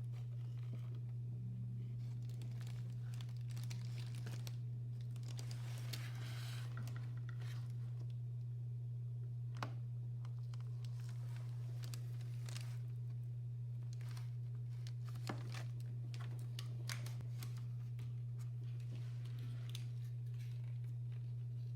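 A steady low hum throughout, with scattered light clicks and brief rustling as small parts of a mechanical keyboard are handled during repair work.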